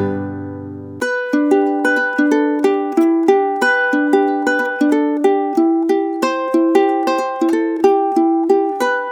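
Background music: a bright, quick plucked-string tune. It begins about a second in, after the last chord of the previous piece dies away.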